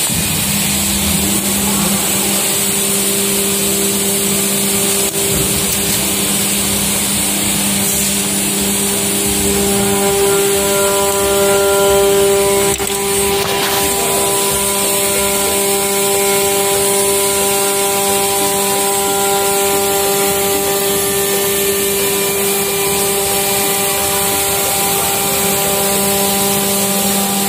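Steady drone of factory machinery running, a hum made of several held tones; the mix of tones shifts about ten seconds in and the drone grows slightly louder for a few seconds.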